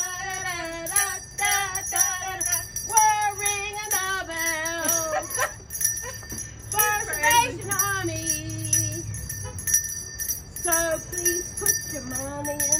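A voice singing a Christmas tune in phrases with wavering pitch, over continuous jingling of bells.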